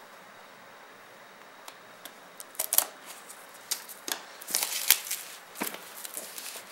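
Plastic shrink-wrap on a smartphone box being slit and peeled off. It crinkles and crackles in short, irregular bursts that begin about two and a half seconds in.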